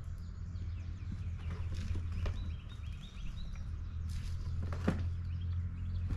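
River rocks knocking as they are handled in a loaded garden cart, a few separate clunks with the loudest just before five seconds in, over a steady low hum, with birds chirping briefly in the middle.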